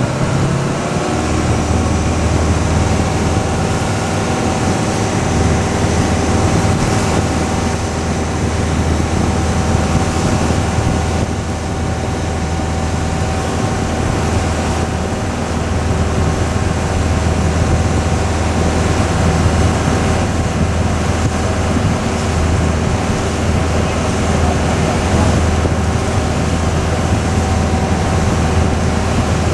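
A passenger ferry's engine running steadily under way, a constant low hum with a steady thin whine above it, over an even rush of wind and water.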